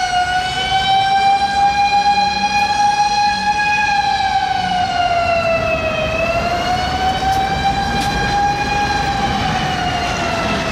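A Tokyo Fire Department fire truck's siren wailing in a slow rise and fall, one tone sweeping up and down over several seconds with a dip about six seconds in, over the low rumble of city traffic.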